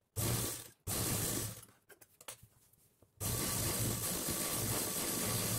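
Sewing machine stitching in three runs: two short runs in the first two seconds, then a longer steady run from about three seconds in.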